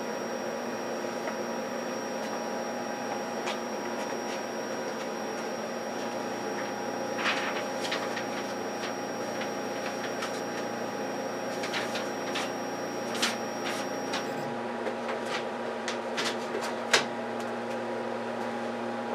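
Kelant Combat S500 resin 3D printer's Z-axis motor running steadily as it raises the build plate, a hum of several steady tones. A high faint tone stops and the hum shifts slightly about 14 seconds in, and a few light clicks sound in the second half.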